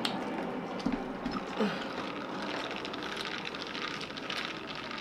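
Airplane passing over the building, a loud steady rush of jet noise, with a few light clinks from a glass of ice being stirred.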